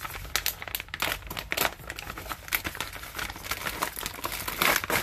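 Clear plastic bag of dried fleece flower root crinkling as it is opened and handled by hand, a run of irregular crackles with the loudest burst just before the end.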